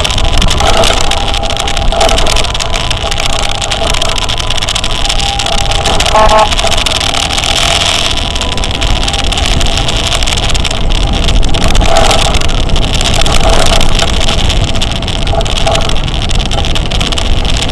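Wind and road noise from a motor scooter riding in traffic, with several short horn toots.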